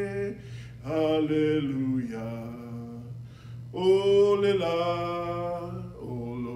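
A man singing a Samoan hymn to Jesus solo into a microphone, in long held phrases.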